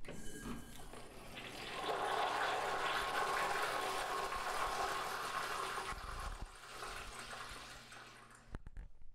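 Toilet flushing: rushing, swirling water swells about two seconds in, stays strong for several seconds, then drains away, with a few sharp clicks near the end.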